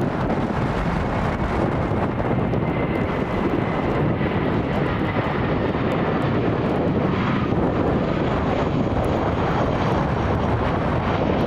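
Airbus A319 airliner's jet engines running, a steady loud rush of engine noise with a faint high whine that fades away about halfway through.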